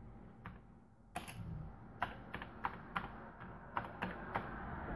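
Keystrokes on a Commodore 64 keyboard as a short command is typed: about a dozen irregular key clicks, most of them after the first second. A faint steady hum sits underneath.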